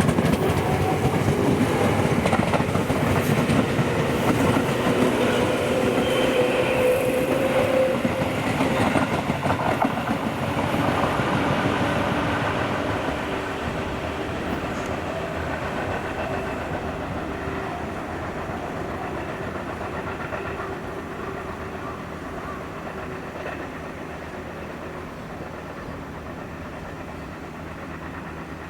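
Electric commuter train running along the track, its wheels clattering over the rail joints. It is loudest at first and fades away over the second half.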